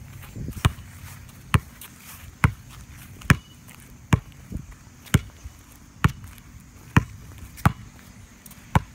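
A ball bounced by hand on pavement, dribbled steadily about once a second with sharp smacks on each impact.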